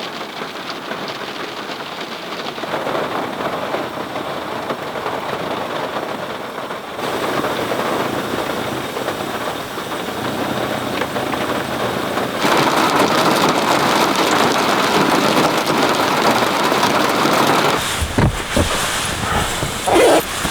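Steady heavy rain falling, as a continuous hiss that shifts in level a couple of times, with a few low thumps near the end.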